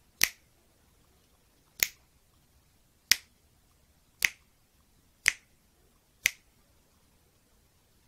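Finger snapping: six sharp single snaps, spaced about one to one and a half seconds apart.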